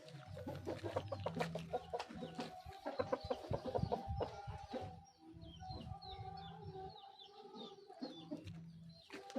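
Chickens clucking, with many short sharp clicks over the first half, then softer calls and small chirps. These are birds after treatment for ngorok, the snoring respiratory illness of chickens.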